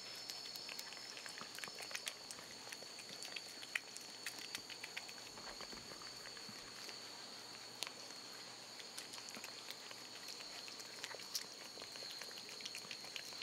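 Two cats licking paste from a squeeze-tube cat treat: a faint, irregular run of quick wet licking and smacking clicks over a steady high tone.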